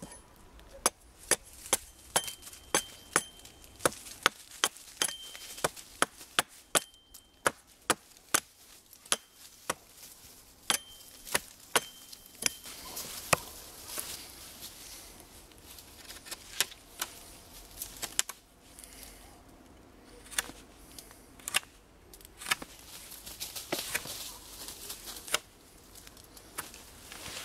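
A hatchet chopping a notch into a wooden stick laid on a stump, sharp strikes about two a second, some with a short metallic ring. About halfway through the chopping stops and a knife shaves wood from the stick, a rasping scrape with a few clicks.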